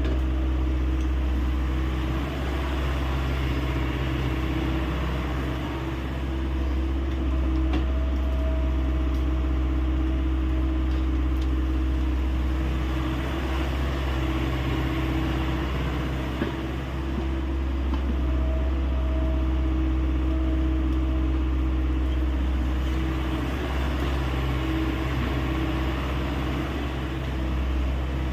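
Diesel engine of a Hyundai 85A excavator running steadily under work, with an even hum and no big changes in revs.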